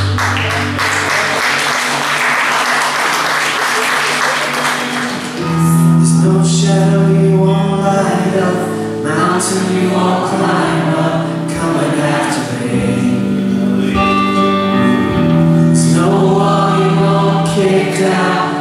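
Live contemporary worship music from a band with electric and acoustic guitars and bass. For about the first five seconds applause runs over a held chord, then the lead singer and the congregation sing together over the band.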